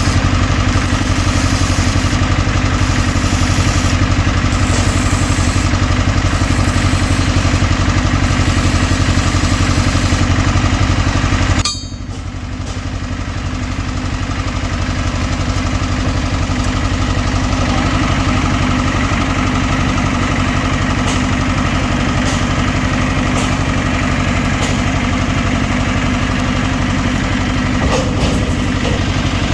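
An engine running steadily. For the first ten seconds a high hiss switches on and off every second or so, and about twelve seconds in the sound drops suddenly, then the engine runs on.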